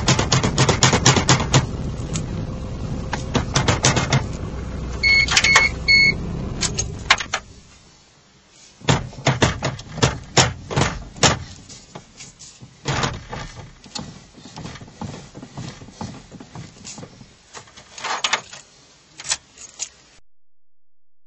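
Lada Kalina steering wheel turned back and forth, with repeated knocks and clicks from the electric power steering column: the sign of the steering fault. A steady low hum runs under the first few seconds and stops about seven seconds in, shortly after a couple of short beeps.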